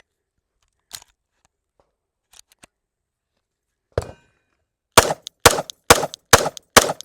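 Glock 45 9mm pistol fired in quick succession, about two shots a second, starting about five seconds in, each shot a sharp crack. Before the shots there are only a few faint clicks and a small knock.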